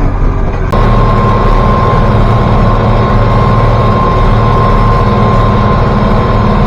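International Harvester 1086 tractor's six-cylinder diesel engine running steadily, with a pulsing low drone and a steady high whine. It gets louder abruptly just under a second in.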